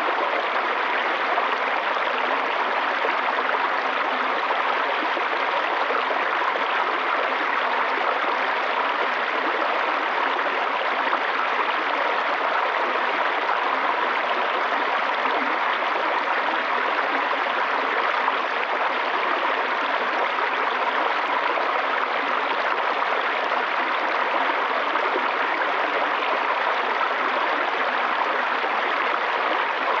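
Small woodland stream rushing and splashing over a low rock ledge and shallow riffles. The rush is steady and unbroken throughout.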